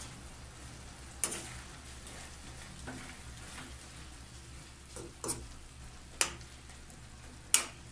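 Metal spoon stirring chicken gizzards and carrots in a thick sauce in a frying pan over a low sizzle, with four sharp clicks as the spoon strikes the pan, the last near the end the loudest.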